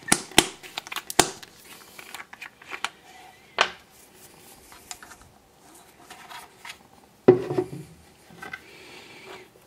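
Hands handling small plastic and metal parts and a cotton swab: plastic crinkling with sharp clicks, mostly in the first second or so, and a heavier knock about seven seconds in.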